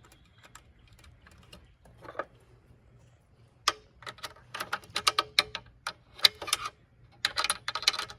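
Small metal hardware clicking and rattling as screws are tightened by hand tool on a solar panel post mount: scattered single clicks at first, then quick runs of clicks about halfway through and again near the end.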